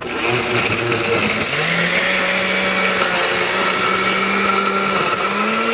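Countertop blender running at full speed, grinding dried chiles in evaporated milk into a smooth liquid. The motor switches on abruptly, its pitch rises slightly about a second and a half in as it comes up to speed, then holds steady.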